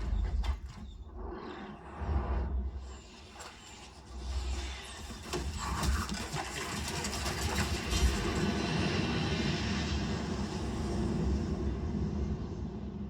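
Samsung HW-A650 3.1-channel soundbar playing a Dolby Atmos demo soundtrack: several deep low booms, then a building rush of noise like a passing vehicle or engine that holds steady toward the end.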